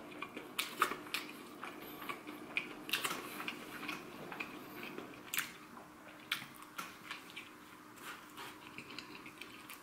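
A person chewing a mouthful of a mini hamburger slider: soft, irregular mouth clicks and wet chewing noises.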